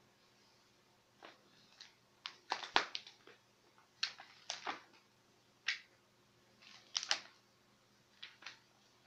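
Pages of a 1948 hardback book being turned and handled by hand: a run of short, crisp paper rustles and flicks in several clusters, loudest about three seconds in.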